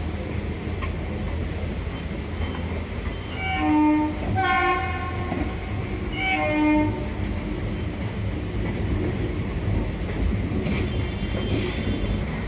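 A local passenger train running with a steady low rumble of wheels on the track. A train horn sounds loudly about four seconds in and again around six seconds, then more faintly near the end.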